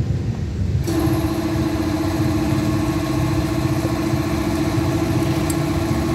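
A motor running steadily with a low rumble. About a second in, a steady mid-pitched hum joins it and holds.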